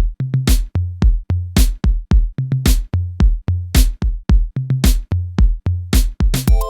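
Electronic music: a drum-machine beat with a heavy kick drum and a sharp snare-like hit about once a second. Sustained synth tones come in right at the end.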